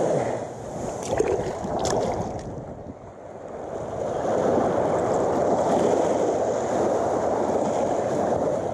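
Shallow surf water sloshing and lapping, a steady wash that eases off briefly about three seconds in and then builds again, with a couple of short clicks in the first two seconds.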